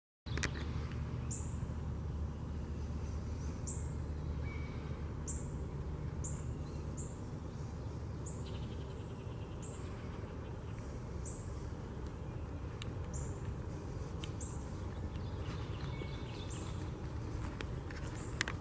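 Pine-forest ambience: a bird repeats a short, high, falling chirp about once a second over a steady low rumble. A single sharp click comes near the end.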